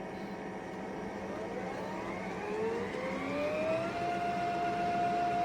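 Roborock F25 GT wet-dry vacuum's motor spinning up in the docked self-cleaning cycle, at the roller-soaking stage. It is a rising whine that climbs for about three seconds and then holds a steady pitch.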